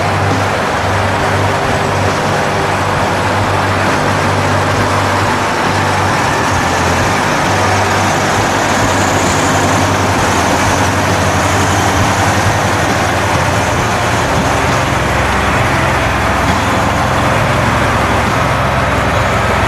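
Engine of a heavy four-track snow-and-swamp carrier running steadily, a low drone under a broad noisy haze, with no marked changes in speed.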